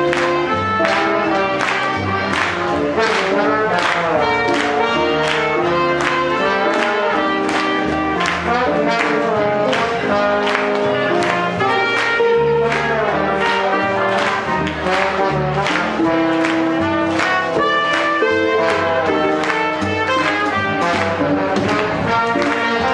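Swing jazz band playing, with trumpet and trombone over a steady beat of about two a second.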